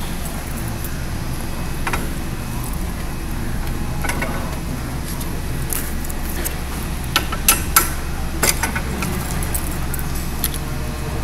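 Light metallic clicks and taps as a coil spring is seated and a Longacre 73505 coil spring tester is adjusted, one about two seconds in and a cluster in the second half, over a steady low hum.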